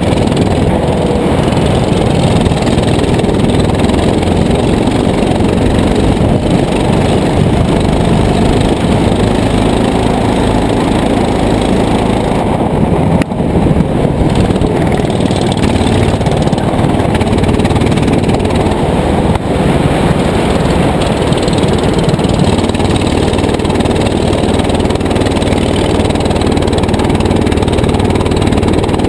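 Go-kart engine running hard through a lap, heard from the driver's seat as a loud, steady, rough sound with two very brief dips in level.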